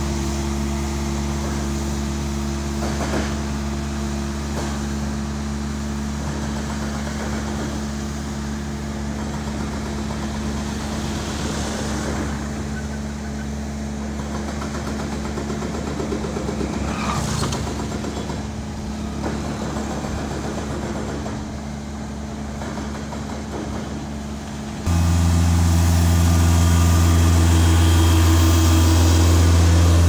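Bobcat S450 skid-steer loader's diesel engine running steadily. About 25 seconds in it gives way abruptly to a louder, steady low engine hum from a tractor-driven air compressor.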